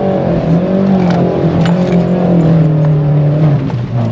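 Car engine revving up and down while driving over rough off-road ground, with a few light knocks from the bumps. The engine note drops near the end.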